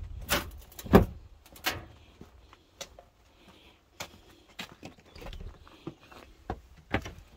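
A string of irregular sharp knocks and clicks, the loudest about a second in, typical of handling things or a door being worked.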